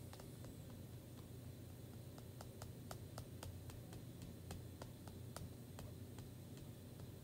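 Faint quick ticks and taps, about four or five a second and uneven, from a plastic paste applicator working chalk paste through a silkscreen transfer, over a steady low hum.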